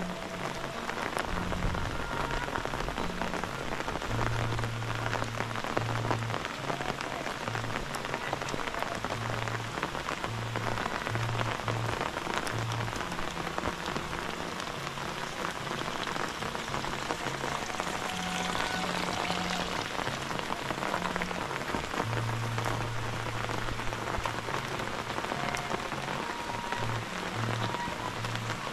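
Heavy rain falling steadily: a dense, even patter of drops. A low hum comes and goes underneath it.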